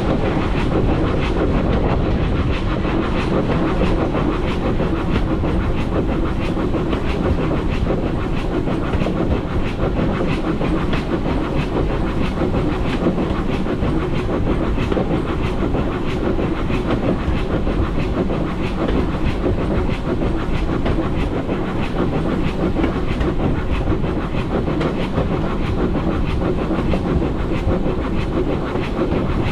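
Steam train hauled by a GWR small Prairie 2-6-2T tank engine running steadily along the line. There is a continuous rumble with a constant rapid clicking of wheels over the rails, and no whistle.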